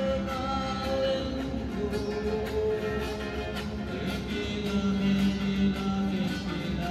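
Music of strummed and plucked acoustic guitars with voices singing in long held notes.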